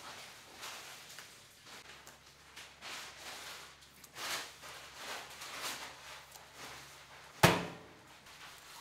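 Soft, repeated rasping strokes of a knife filleting trout on a cutting board, with one sharp, loud thump near the end.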